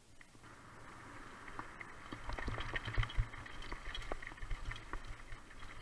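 Mountain bike descending a dirt and grass trail at speed: a rush of tyre noise that builds from about a second in, with frequent sharp rattles and knocks from the bike jolting over bumps.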